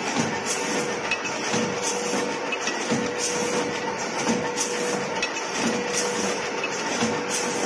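Rotary premade-pouch packing machine with an auger powder filler running. A steady hum is broken by short hisses and clicks that repeat about once or twice a second as the stations cycle.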